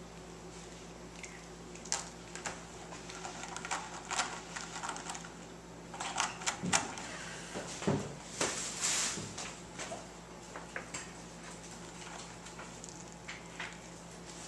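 Cats pawing, clawing and climbing on a cat tree with sisal-rope posts: scattered soft knocks, claw scratches and rustles, busiest around the middle, with a brief scratchy rustle about eight seconds in.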